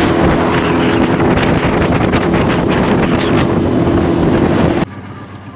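A small boat's outboard motor running steadily under way, with wind buffeting the microphone. The sound cuts off abruptly about five seconds in, leaving a much quieter background.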